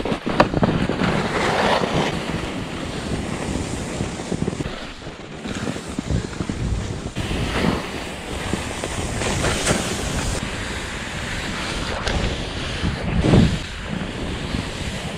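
Wind rushing over an action camera's microphone during a fast ski descent, mixed with the hiss of skis running through powder snow; the rush swells and falls in several strong surges.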